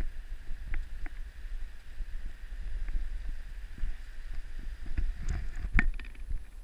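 Wind buffeting the camera microphone as a low, uneven rumble, with scattered footsteps and knocks on a footbridge, several close together about five seconds in.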